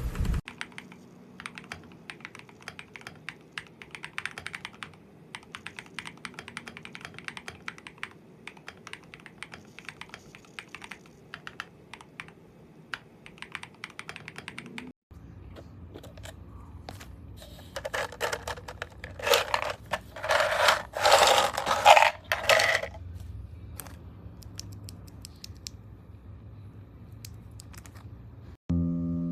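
Typing on a mechanical keyboard: a stream of quick keystroke clicks. About halfway there is a cut to another take over a low hum, where a denser, louder flurry of keystrokes comes a few seconds later.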